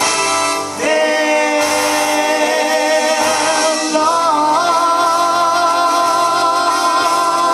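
Show-tune music with singing, including a long held sung note with vibrato from about halfway in.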